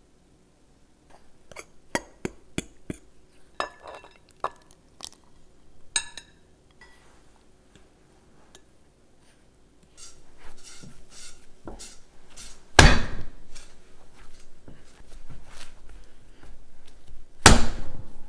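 Light clicks and clinks of butter blocks and a ceramic bowl on a glass kitchen scale. Then hands knead a sticky bread dough on a granite countertop, and the dough is slapped down hard twice.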